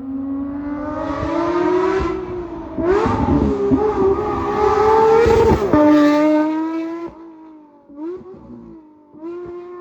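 Porsche 992 GT3 RS's naturally aspirated flat-six revving through its exhaust: the pitch climbs over the first two seconds, then a second, louder and higher rev holds for about three seconds before dropping back and fading to a quieter, uneven sound around seven seconds in.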